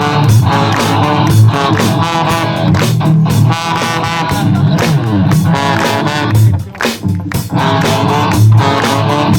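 Rock band playing live: electric guitar, bass guitar and drum kit with a steady beat.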